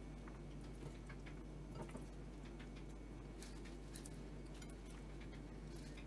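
Faint, irregular light clicks and rustles of hands placing sliced red onion, pickle slices and arugula leaves onto a flatbread on a plate, over a low steady hum.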